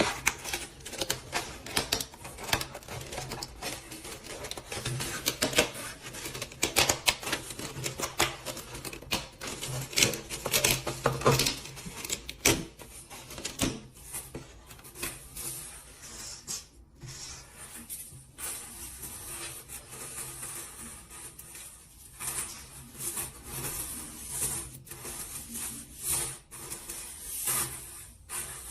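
Irregular rapid clicking and clattering, like small hard parts or tools being handled, over a steady low machine hum.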